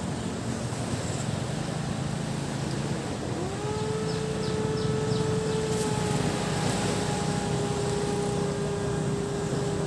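A motor running over a steady wash of surf. About three seconds in, its tone rises and then holds steady.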